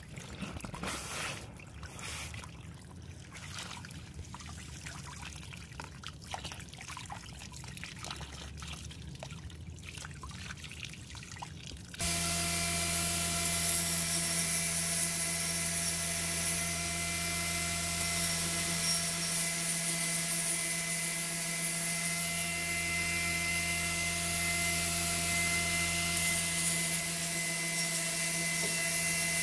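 Belt grinder running steadily with a constant whine over a sanding hiss as a cast brass sword guard is held against its belt; it cuts in abruptly about twelve seconds in. Before that, a quieter, irregular noise.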